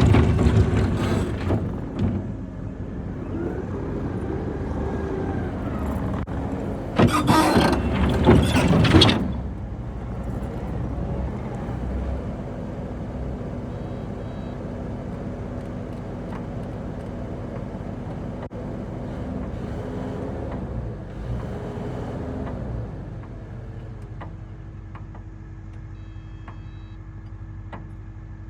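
Kubota SVL95-2S compact track loader's diesel engine running under working load, with a loud harsh noise lasting about two seconds around 7 seconds in. Near the end the engine settles to a quieter, steady idle.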